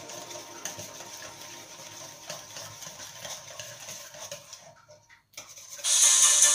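A whisk stirring batter in a stainless steel mixing bowl, with faint, irregular scraping and light ticks against the metal. About five seconds in it drops out briefly, and loud rhythmic music comes in near the end.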